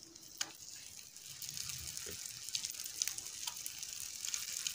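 Hot spiced oil sizzling and crackling in a frying pan as halved boiled eggs are laid into it one by one. The sizzle grows louder about a second and a half in, with scattered pops.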